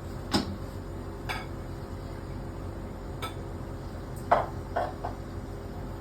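A bowl knocking against the floor as flood water is scooped up with it: six short, sharp knocks spaced unevenly, the loudest about four seconds in.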